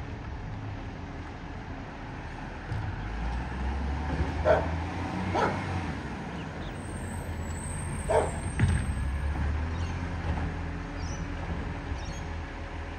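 Side-loader garbage truck's diesel engine running steadily while its lifting arm empties wheelie bins. There are sharp clunks from the bins and arm twice, a few seconds in and again about eight seconds in.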